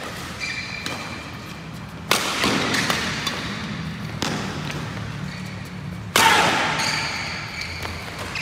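Badminton rally: rackets striking the shuttlecock, three hard hits about two, four and six seconds in, the first and last loudest, ringing in the hall. Between them come lighter strokes and short shoe squeaks on the court floor.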